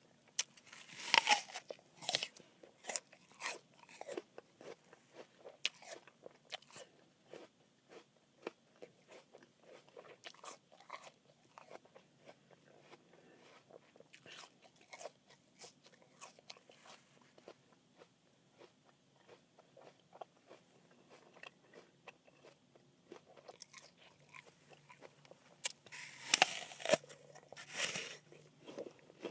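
A crisp apple being bitten and chewed close up, with loud, crunchy bites about a second in and again near the end, and softer chewing crunches in between.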